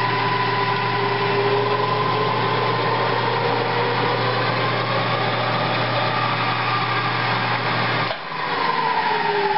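Drill press motor and spindle running with no load, a steady hum under a whine whose pitch drifts slowly as the speed is adjusted. About eight seconds in the hum cuts out and the whine falls away as the spindle spins down.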